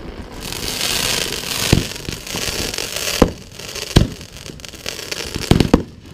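Aerial fireworks firing: a loud crackling hiss over the first few seconds, then about five sharp bangs as shots launch and burst, the last two close together.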